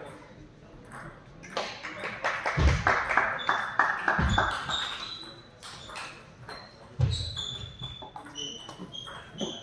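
A rally of sharp ball hits, about four a second for two seconds, with short high squeaks and a few heavy thumps of footwork on a hall floor.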